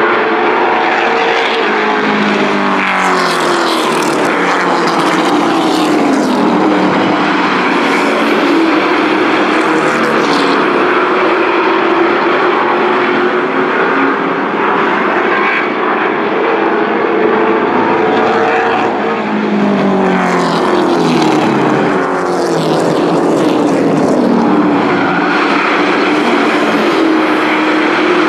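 Engines of a pack of race trucks running hard around an oval, several engine notes overlapping. The pitch falls away as the pack sweeps past, about three seconds in and again about twenty seconds in, then climbs back.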